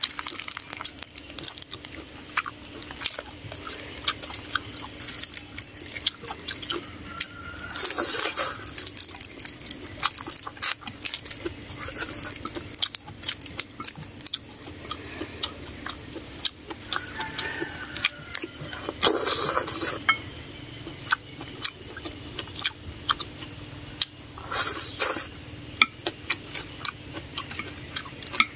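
A person eating mixed instant noodles with mustard greens, close to the microphone: steady chewing with many small wet mouth clicks. Three times, a longer, louder noisy burst stands out.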